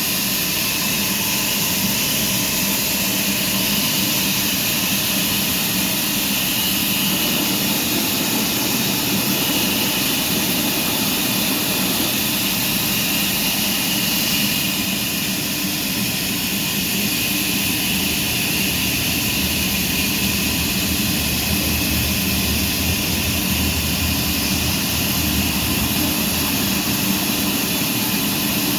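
Sawmill machinery running with a loud, steady mechanical noise that does not change.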